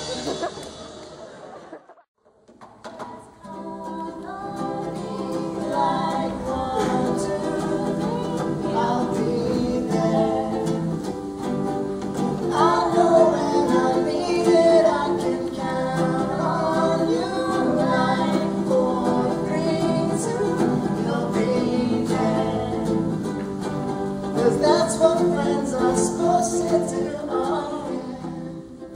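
Several voices singing together over strummed ukuleles and acoustic guitars, starting about two seconds in after the previous music fades out.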